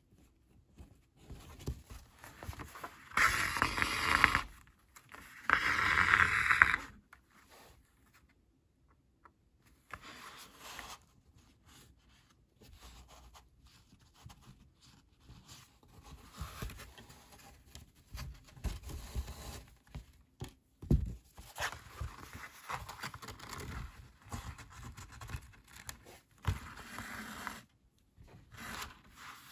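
Linen bookbinding thread pulled through the sewing holes of cotton printmaking-paper signatures, with two loud drawn-out pulls a few seconds in. These are followed by quieter scraping and rustling as the paper is handled, and a light knock about two-thirds of the way through.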